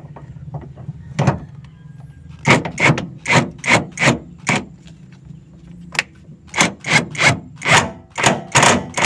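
A run of short, sharp strokes, about two a second, from hand work on a diesel engine around its fuel filter, over a low steady hum. The strokes start about two and a half seconds in.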